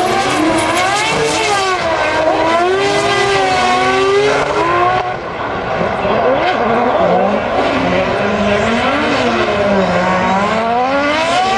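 Drift cars' engines revving hard on track, the pitch sweeping up and down over and over as the throttle is worked through the drift, over a haze of tyre noise. The sound eases briefly about five seconds in, then picks up again.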